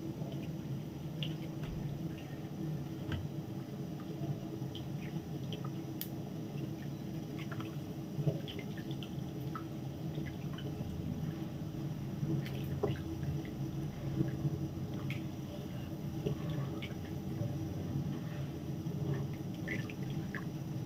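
Wooden spatula stirring a thick coconut-milk and flour batter in a nonstick pan, with soft wet squelches and small scattered clicks as the batter thickens on the heat, over a steady low hum.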